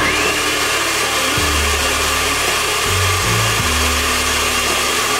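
Countertop electric blender switched on, its motor spinning up to a steady high whine and running at speed, grinding bait ingredients. Background music with a bass line plays underneath.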